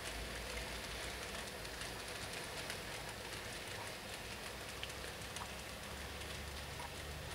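Hornby 00 gauge model of a Drummond 700 class 0-6-0 tender locomotive running past with a train of goods wagons: a steady, faint rattle of wheels on the track with scattered small clicks.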